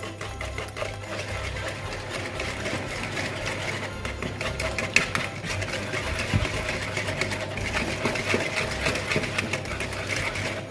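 Wire whisk beating eggs, sugar and sunflower oil in a wooden bowl: rapid, steady rattling strokes of the metal wires against the wood.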